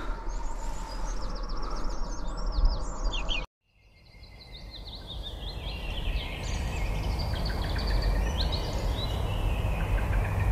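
Small birds singing in quick, chirping phrases over a low rumble of wind on the microphone; the sound cuts out about three and a half seconds in and fades back in.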